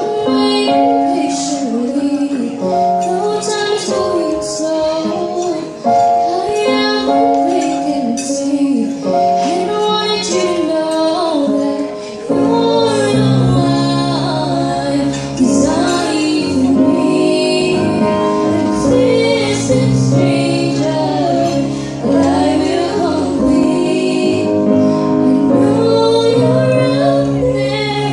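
Women singing a slow song over held instrumental chords; a bass part comes in about twelve seconds in and the music gets fuller.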